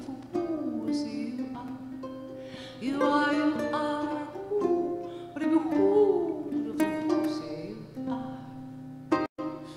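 Two ukuleles plucked in a live duet, with a woman singing over them in gliding, bending phrases. The sound drops out completely for a moment near the end.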